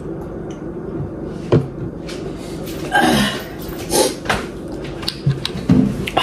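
A sharp knock about one and a half seconds in, then a few brief vocal noises, over a steady low hum.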